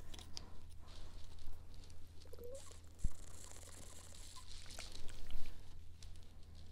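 Small plastic clicks and handling sounds from a Cirkul flavor-cartridge water bottle, then sips and swallows drunk through its spout. There is a soft knock about three seconds in.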